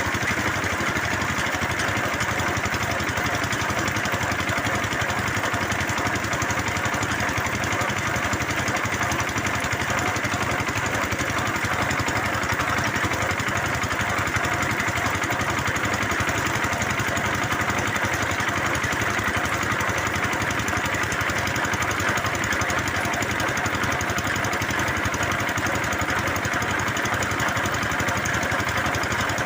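Engine of a bore well drilling machine running steadily at a constant speed.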